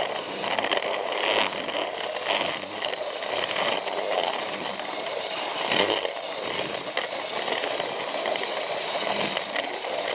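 Plarail battery-powered toy train running on plastic track: a continuous whirr from its small motor and gears, with irregular clicking and rattling as it runs over the track joints.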